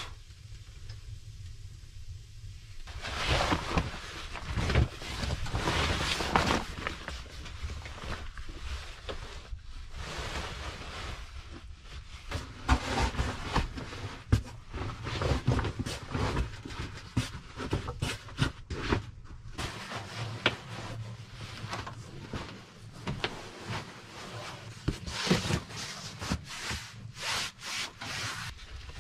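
Rustling of bags, a foam sleeping mat and fabric, with scattered knocks, as bedding is handled and laid out on a wooden plank bunk. It starts about three seconds in, after a quieter stretch.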